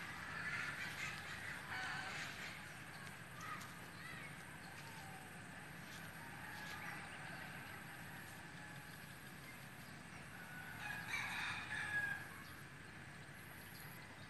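A rooster crowing, faint, near the start and again, louder, about eleven seconds in.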